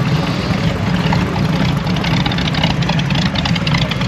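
A hot rod's engine running steadily at low speed as the car rolls in, a deep rumble.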